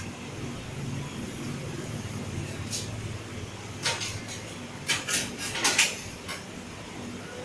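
Dishes and utensils clinking and clattering a few times over a steady low hum.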